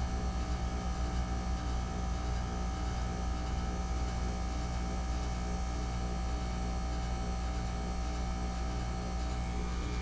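2008 Goodman packaged heat pump running in its defrost cycle: a steady compressor hum with several steady tones layered over it.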